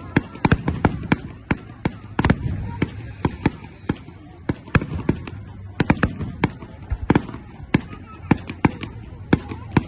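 Fireworks and firecrackers going off: a rapid, irregular string of sharp bangs and pops, several a second, over a low rumble, with a faint whistle sliding in pitch about three seconds in.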